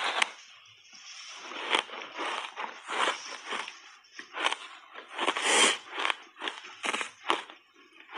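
Refrozen block ice coated in matcha powder being bitten and then chewed: a crack as the bite is taken, then an irregular run of crunches and sharp cracks, about two a second, as the ice breaks between the teeth.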